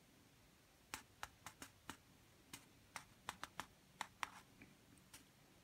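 A dozen or so faint, sharp clicks at irregular intervals, starting about a second in over a quiet background.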